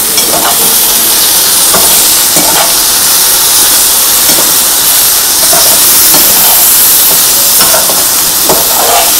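Beef pieces and vegetables in sauce and ghee sizzling steadily in a frying pan over a gas flame while a metal spatula stirs and turns them, scraping the pan about once a second.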